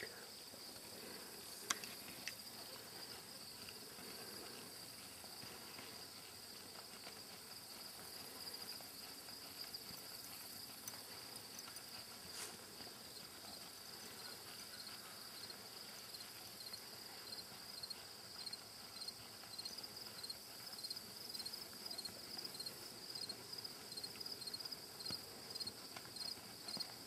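Insects chirping in a steady high-pitched trill that becomes evenly pulsed, about twice a second, and louder in the second half. A single sharp click sounds about two seconds in.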